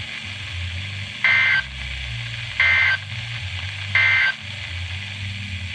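Emergency Alert System end-of-message signal: three short two-tone digital data bursts of SAME code, about a second and a half apart, over a low steady hum. They mark the end of the alert broadcast.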